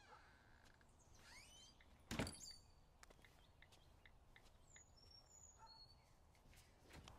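Quiet outdoor background with birds chirping faintly, and a front door shutting with a single thunk about two seconds in.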